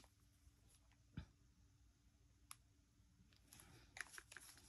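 Near silence with a few faint clicks: one about a second in, another midway, then small ticks and rustling near the end, as glue dots are pressed onto paper pieces.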